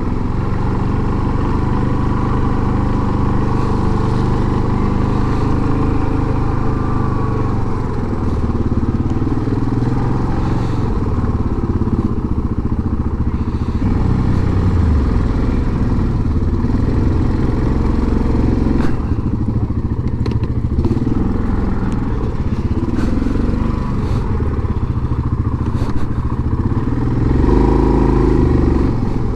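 Yamaha Grizzly 700 ATV's single-cylinder engine running as the quad rides along slowly, its note rising and falling a little with the throttle and swelling near the end.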